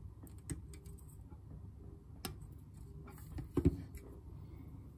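Small scattered clicks and ticks of a printed circuit board being handled while new component leads are pushed through its holes, with one louder knock about three and a half seconds in. A low steady hum sits underneath.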